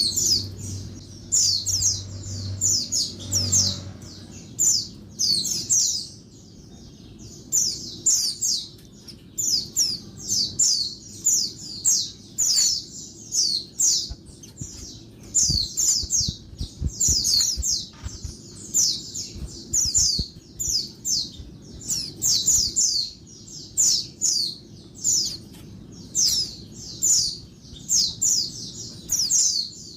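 Female white-eye (pleci) giving a noisy, non-stop run of short high chirps in quick bunches, over a low steady hum. These are female calls of the kind played to stir male white-eyes into singing.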